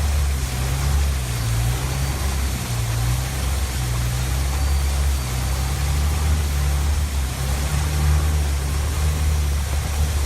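Tour boat's engine running steadily with a low, even drone, over a constant hiss of wind and water.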